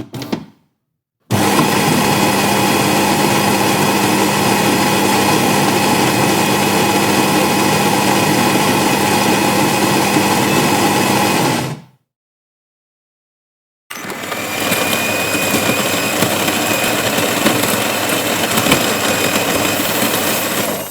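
Electric coffee grinder: a few short clicks, then the motor grinds steadily for about ten seconds before winding down and stopping. After a two-second pause it grinds again for about seven seconds.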